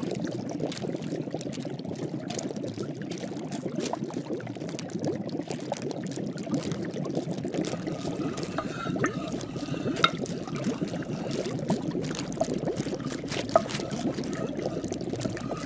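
Liquid bubbling steadily, like a boiling cauldron, with a couple of sharper pops in the second half.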